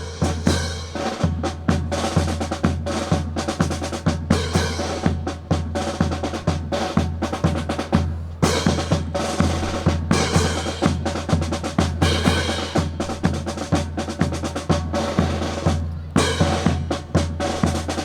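Drum-driven march music with a steady beat of snare and bass drum, played over the public-address speakers to accompany the drill.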